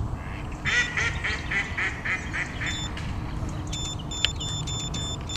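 A duck quacking in a quick series of about eight calls. Then, over the last second and a half, an electronic carp-style bite alarm on the rod pod gives a run of short beeps as the line moves across its sensor.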